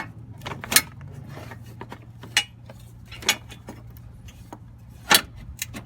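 Metal hand tools and bolts clinking and clanking while a battery tray is bolted back in: about six sharp clanks spread irregularly over a steady low hum.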